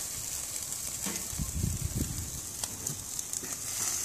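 Burger patties sizzling on a gas grill's grates over lava rock: a steady hiss with scattered crackling pops, and some low rumbling around the middle.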